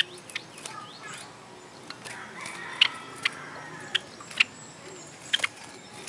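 Birds calling: a scatter of short, sharp calls, about ten of them, at irregular intervals over a steady background hiss.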